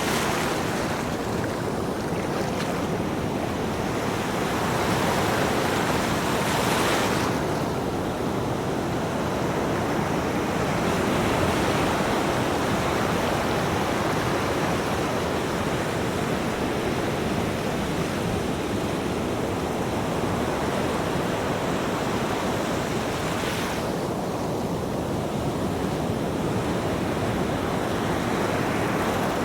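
Ocean waves breaking and washing on a shore in a continuous surf wash, swelling now and then as a wave breaks.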